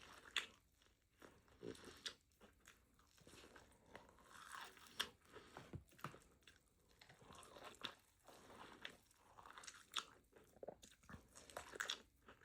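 Quiet eating sounds of a person chewing elote (Mexican street corn on the cob with mayo): an irregular string of crunchy bites and wet mouth smacks.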